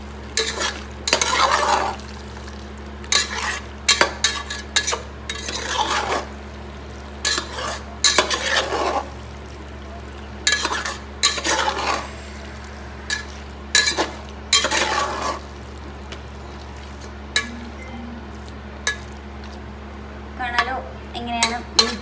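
A metal spoon stirring raw chicken pieces into an onion and masala mix in a pot: irregular scraping, squelching strokes with sharp clicks of the spoon on the pot, fewer strokes in the second half. A steady low hum runs underneath.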